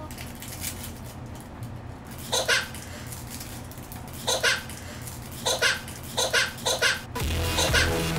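A young child laughing in short bursts, the giggles coming quicker toward the end. About seven seconds in, loud music with a heavy bass cuts in suddenly.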